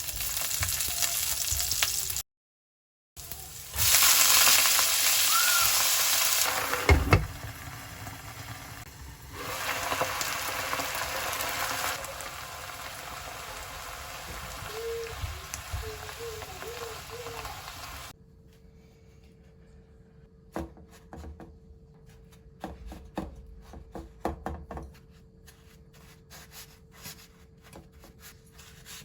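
Food frying in hot oil: a loud, steady sizzle in several cut-together stretches. In the last third it gives way to a much quieter stretch of scattered clicks and knocks.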